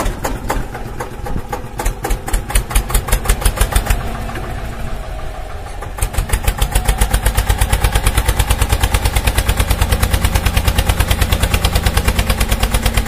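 Small engine running with a fast, even chug, about six beats a second, growing louder and steadier about six seconds in.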